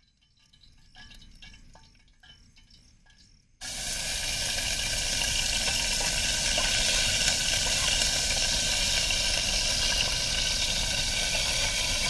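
Food sizzling in hot oil in a pot on a camping gas stove, starting suddenly about three and a half seconds in and then holding steady. Before it come only a few faint handling clicks.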